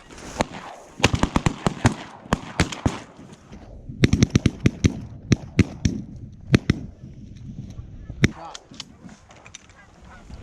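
A rapid volley of many shotgun shots from several hunters, in two dense bursts over the first seven seconds and a last shot a little after eight seconds, with geese honking.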